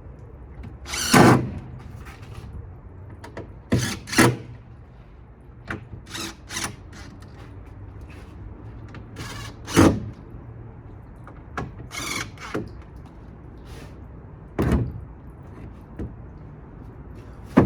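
Wooden panels of a homemade plywood toolbox being handled and fitted: irregular knocks and short scrapes of wood on wood, about ten in all, some sliding for about a second.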